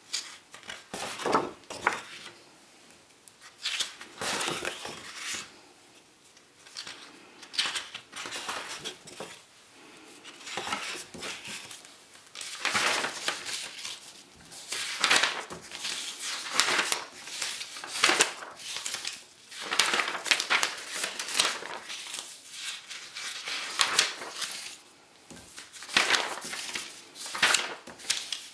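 Loose sheets of paper rustling and sliding against each other as pages are picked up and turned over by hand, in irregular bursts every second or two.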